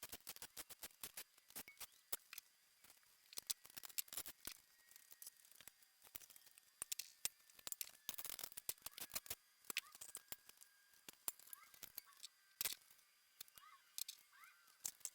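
Irregular light clicks and taps of hand tools and small metal engine parts being handled during an engine teardown, with a few faint short chirps in the second half.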